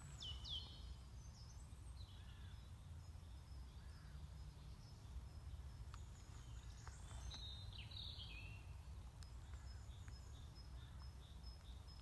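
Faint woodland birdsong: scattered short chirps and falling calls, and through the second half a high note repeated at an even rate, over a steady low rumble.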